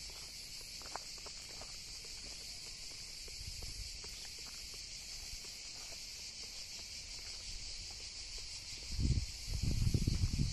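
A steady, high-pitched chorus of insects, with faint footsteps and a low rumble twice near the end.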